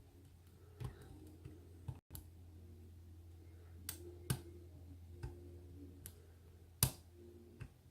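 A lock pick working the pins of a pin-tumbler padlock, giving a few scattered small clicks as pins set. The loudest click comes near the end, over a low steady hum.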